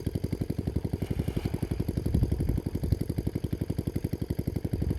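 A small single-cylinder engine running steadily with a fast, even chug, about ten beats a second, briefly louder a little over two seconds in.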